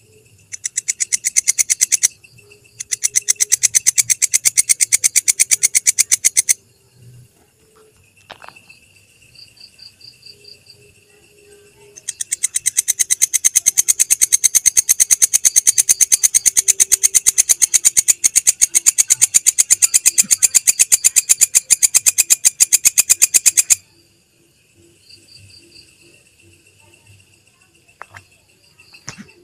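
Belalang kecek (a katydid) calling in trains of rapid, dry ticks: a short burst, a second burst of about three and a half seconds, then after a pause a long burst of about twelve seconds.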